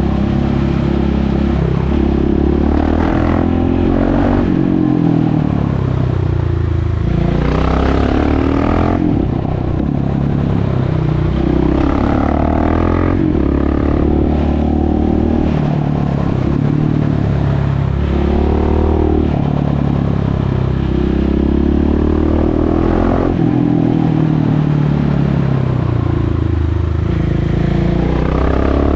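A KTM 690 SMC R supermoto's single-cylinder four-stroke engine, ridden with the exhaust's dB-killer removed. The engine revs up and drops back again and again under acceleration and roll-off.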